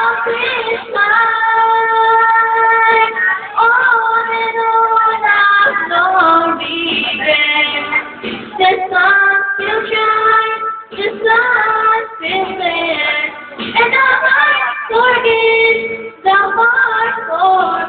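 A female voice singing a slow pop ballad over a backing track, holding long, drawn-out notes.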